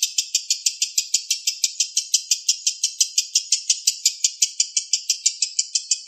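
Lovebird ngekek: a long unbroken run of rapid, shrill, evenly repeated chirps at about seven a second.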